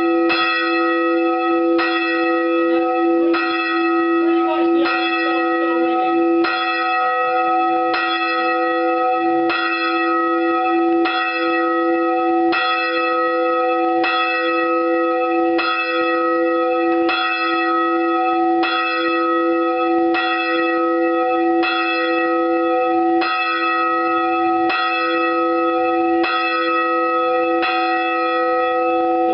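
A single church tower bell struck over and over at an even pace, roughly once every second and a half, its ringing tone carrying on unbroken between strokes.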